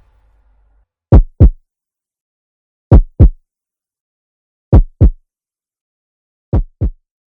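Heartbeat sound effect: four double thumps, lub-dub, about every 1.8 seconds, each thump dropping in pitch, the last pair softer.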